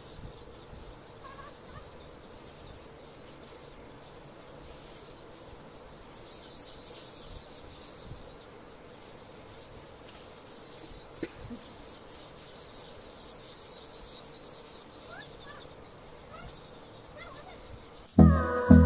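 Pre-dawn outdoor ambience: insects chirring steadily and high-pitched, with a few short bird chirps. Loud music with a regular beat cuts in suddenly near the end.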